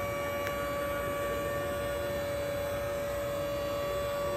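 A steady held hum, one unchanging tone with a fainter overtone above it, over the background noise of a car-repair workshop. A single brief click sounds about half a second in.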